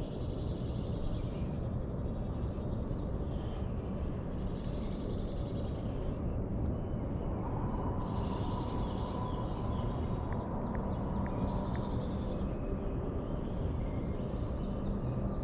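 Riverside ambience: birds calling, with short high calls repeating about every second and a half, and an insect's steady high drone over a steady low rushing noise.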